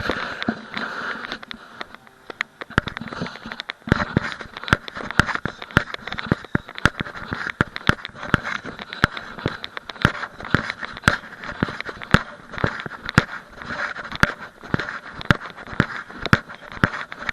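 Sharp clicks and knocks, fairly regular at about two a second after the first few seconds, over a steady hiss, recorded through an action camera's sealed waterproof housing.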